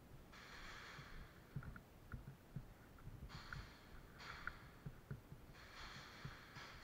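Faint breathing close to the microphone, four breaths in a row, with scattered soft knocks.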